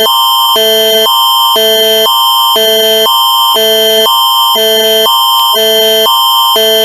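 Canadian Alert Ready attention signal: a loud electronic alert tone, a higher and a lower chord alternating about twice a second over a steady high tone. It announces an emergency alert broadcast.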